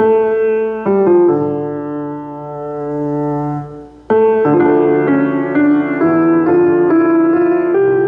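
Background piano music: slow, held chords, with a fuller, busier passage starting about four seconds in.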